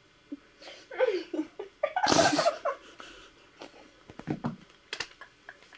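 Muffled laughter and breathy exhalations from people, with a few light clicks and knocks in the second half.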